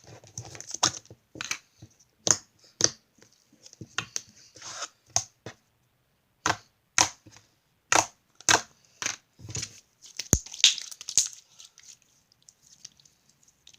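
Crunchy chip slime being squeezed and stretched by hand, giving a string of irregular sharp clicks and crackles, thickest a little past halfway.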